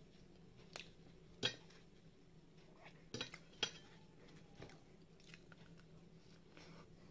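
Fingers handling and folding a flatbread on a plate, giving a few short, sharp clicks and taps against the plate, the loudest about a second and a half in and again about three and a half seconds in, then a bite into the folded bread near the end.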